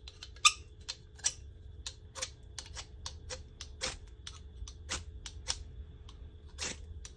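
Metal striker scraped again and again down the flint fire-starter rod of a folding survival shovel kit, throwing sparks: a string of short, sharp scrapes at an uneven pace, the loudest about half a second in.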